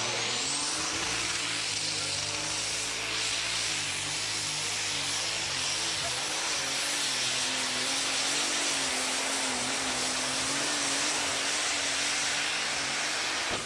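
Super stock pulling tractor's turbocharged diesel engine running flat out under load as it drags the weight-transfer sled: a loud, steady roar with a wavering engine note and a high whine rising in the first second. The sound stops abruptly at the very end.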